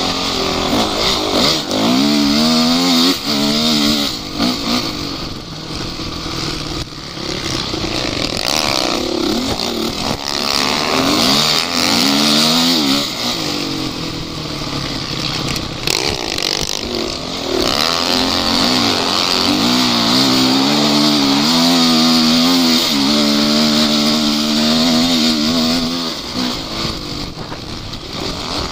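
An off-road vehicle's engine revving up and down over and over, its pitch climbing and dropping every few seconds as it works under load, with a steady rushing noise behind it.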